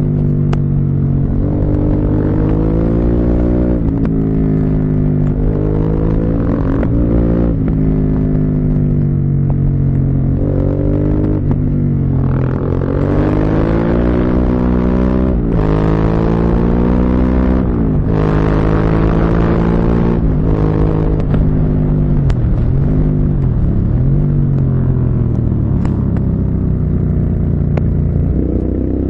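Motorcycle engine under way, its pitch rising and falling several times as it accelerates and eases off through the gears, with brief sharp dips at the gear changes.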